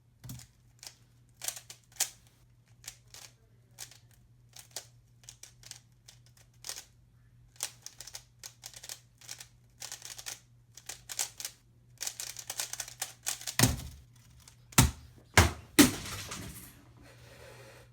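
A Rubik's cube being turned in quick bursts of clicking twists, speeding into a dense flurry. This is followed by several loud knocks as the cube hits a keyboard and is flung across the room, ending in a short clatter.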